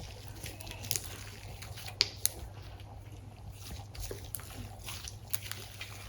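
Homemade glue slime being stretched by hand, giving a few faint sticky clicks and squishes.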